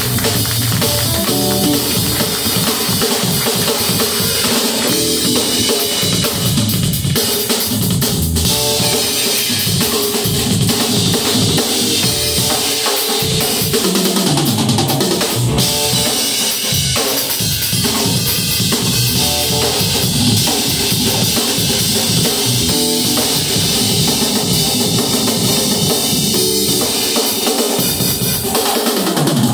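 Live band playing, with the drum kit prominent and electric guitars over it.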